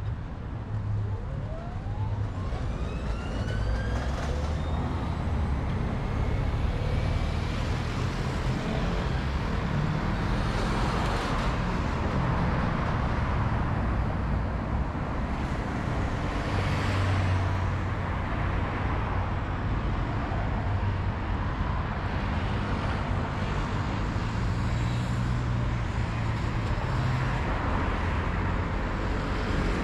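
City street traffic: cars and other vehicles passing with a steady engine rumble and tyre noise. A rising whine can be heard in the first few seconds.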